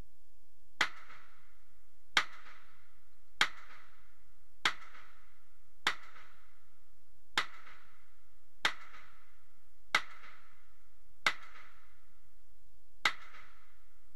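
Ten handgun shots fired one at a time, roughly one every second and a half, each a sharp crack with a short echo off the walls of an indoor shooting range.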